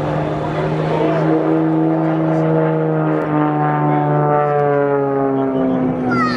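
Extra 300 aerobatic monoplane's six-cylinder Lycoming engine and propeller droning in flight, its pitch sliding steadily lower over the last few seconds.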